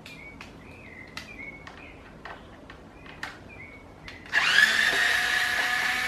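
Small cordless electric screwdriver running for about two seconds near the end with a steady whine, backing out a Phillips screw from a pedestal fan's grille. Before it come a few light clicks of handling.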